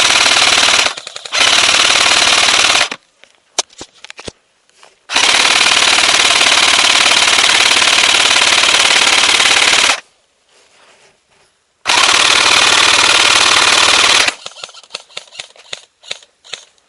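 Airsoft guns firing long full-auto bursts, loud and close: four streams of rapid shots, the longest about five seconds. Scattered single clicks and ticks follow in the last couple of seconds.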